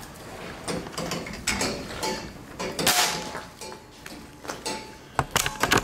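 Gun-mounted camcorder and air-rifle rig being handled and swung about: a run of irregular clicks, knocks and rattles, including the head-mounted LED light rattling against the camcorder. The loudest knocks come about three seconds in and in a cluster near the end.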